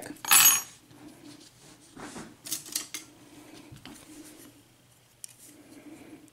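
Small metal clicks and scrapes from an Abus 72/40 padlock being handled as it is snapped shut and worked at to remove the clip at the back of the cylinder. A louder metallic scrape comes in the first second, then scattered clicks.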